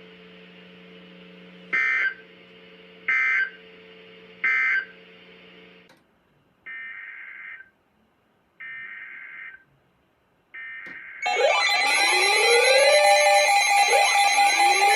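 Emergency Alert System SAME digital data bursts from a NOAA Weather Radio broadcast: three short screeching bursts that close the flood warning, then three longer, quieter bursts announcing the next alert. About 11 seconds in, a loud electronic alert tone starts, with steady tones and rising sweeps repeating about every two seconds.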